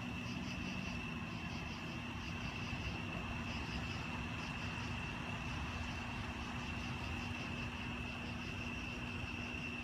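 Steady night-time outdoor ambience: insects chirping in a fast, even pulsing pattern over a constant low hum.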